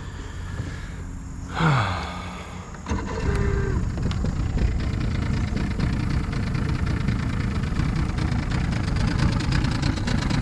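1992 Force 90 hp two-stroke outboard motor running rough just after a cold start: it drops in pitch about two seconds in, then picks up and runs louder and steadier from about three seconds in. The owner fears it is about to stall.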